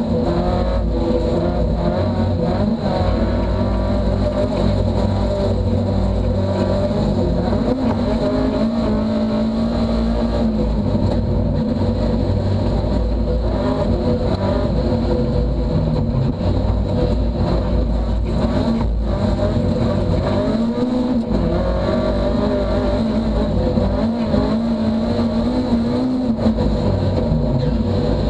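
Rally-prepared Ford Fiesta's engine running hard at speed, heard from inside the stripped-out cabin over a steady low rumble. Its pitch dips and climbs again several times.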